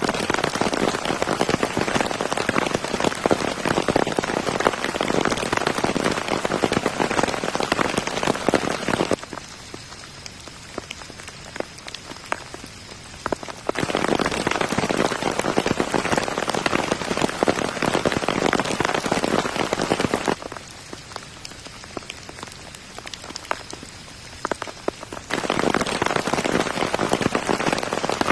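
Heavy tropical rain pattering densely, with many separate drops ticking. Twice the rain drops suddenly to a softer patter for a few seconds and then comes back just as suddenly.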